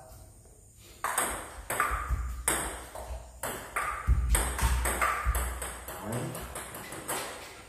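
Table tennis rally: the ball clicking sharply off the bats and the table in a quick run of knocks. It starts about a second in, after a short quiet while the serve is set up.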